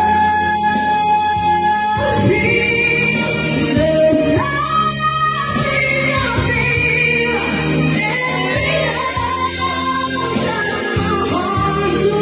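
A voice singing long held notes that bend and slide in pitch, over musical accompaniment.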